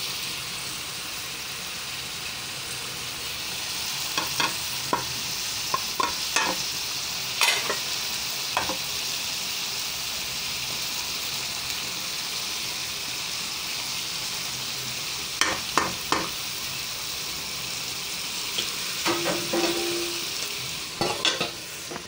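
Diced potatoes, tomatoes and green peppers frying in a pan with a steady sizzle, stirred with a wooden spoon that scrapes and clicks against the pan every few seconds.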